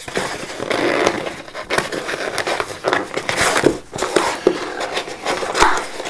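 Hands pulling open a tape-wrapped cardboard mailing box: irregular crackling and rustling of packing tape and cardboard, with scattered sharp clicks.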